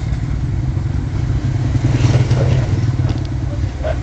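An engine running steadily at low speed, with a few faint clicks.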